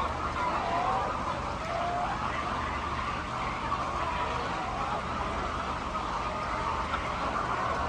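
A large flock of chickens calling all at once: many overlapping short cries in a continuous din, over a steady low hum.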